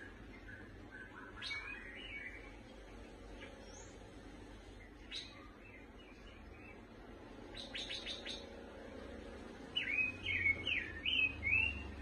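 A pancawarna lovebird chirping in short scattered calls. A quick run of clicking ticks comes a little after halfway, then a burst of loud, rapid chirps near the end.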